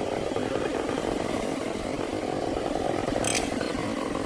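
Chainsaw running steadily, with a brief hiss about three seconds in.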